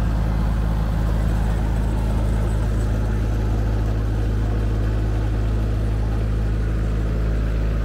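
Miniature park train's locomotive engine idling steadily while the train stands still, an even low hum that does not change.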